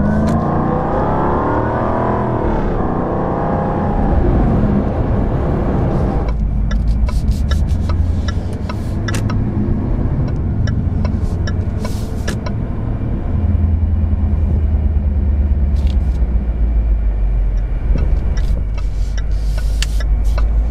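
Jaguar F-Type R's supercharged 5.0-litre V8 heard from inside the cabin, revving up and easing off with its pitch rising and falling over the first few seconds. After that it runs as a steady low rumble at low speed, with a few scattered sharp clicks.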